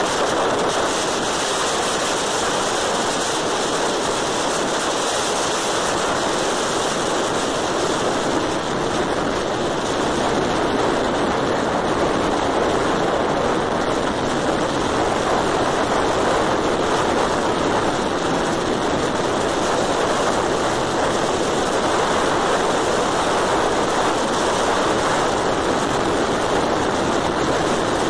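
Steady rush of wind over the microphone mixed with road noise from a moving vehicle travelling at speed, unchanging throughout.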